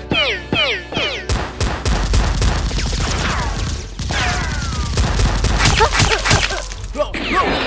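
Gunfire sound effects: rapid volleys of sharp shots with several falling, whistle-like sweeps, over a steady low rumble.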